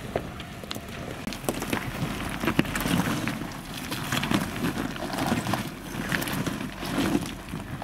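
Jeep Wrangler crawling over rocks in low range: a faint low engine hum under irregular crunches and knocks of tyres, rocks and footsteps on loose stone.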